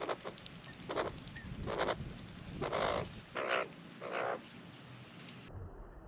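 Male Australian magpie giving a series of short, low croaking calls, about one a second, ending about four seconds in, over faint quick scratching in hay.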